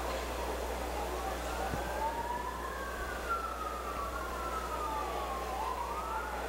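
Wailing siren, its pitch slowly rising and falling, with two wails overlapping, over a steady low hum.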